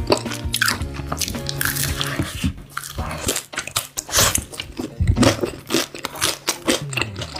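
Crispy fried chicken being bitten and chewed, with many short crisp crunches one after another. Music runs underneath for the first few seconds.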